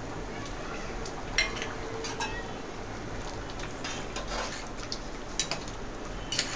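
Steel spoon stirring a simmering dal-and-vegetable curry in an aluminium pot, clinking against the pot several times, over a steady low hiss.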